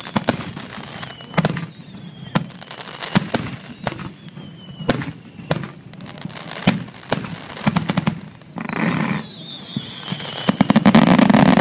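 Fireworks display: aerial shells bursting with sharp bangs about once or twice a second, with thin whistles that fall in pitch between them. Near the end the bangs give way to a dense run of rapid crackling pops, the loudest part.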